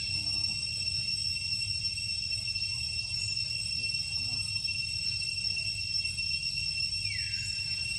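Steady, high-pitched insect drone holding two tones, over a low rumble, with one brief falling squeak about seven seconds in.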